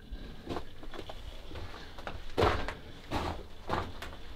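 Footsteps crunching on loose rock and gravel on a mine tunnel floor, an irregular step every second or so, the loudest about halfway through.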